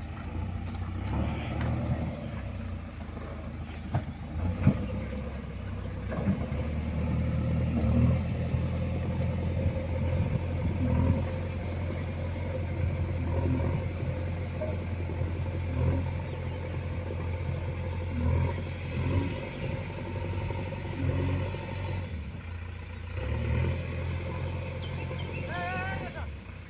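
A large engine running steadily, its low hum swelling and easing at times, with a few knocks and clanks.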